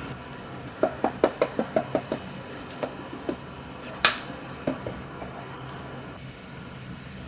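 A quick run of about eight sharp knocks, about six a second, then a few scattered knocks and one brighter clatter about four seconds in, over a steady low hum.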